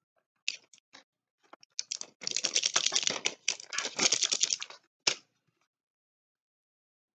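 Mucinex DM medicine packaging being handled: bursts of rapid crinkling and clicking, busiest between two and five seconds, ending with one sharp click just after five seconds.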